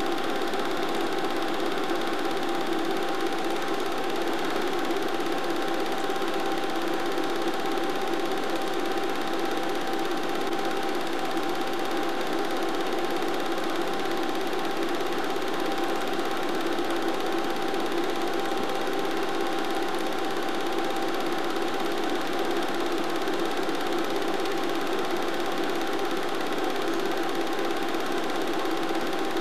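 Steady mechanical whirr with a fixed hum that does not change across the picture's cuts: the running noise of a film projector playing back the silent race footage.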